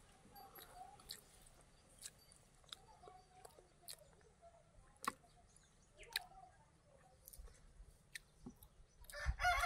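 Quiet chewing and wet mouth clicks of someone eating soft idli with curry by hand, with faint bird calls behind. Near the end a rooster starts crowing loudly.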